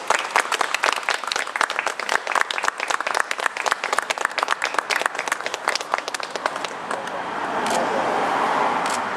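A small group of people clapping, thinning out after about six seconds. Near the end a steady rush of passing road traffic swells up.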